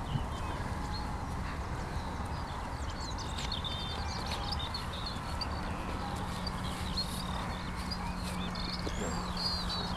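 Small birds chirping again and again over a steady low rumble of wind on the microphone.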